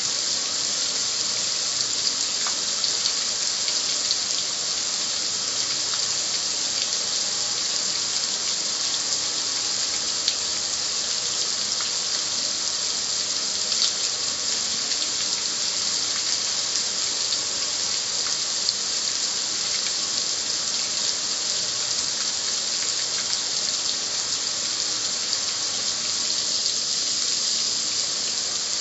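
Water spray from a hose drumming and splashing steadily on a metal gas grill's lid and control panel, an unbroken hiss with water running off.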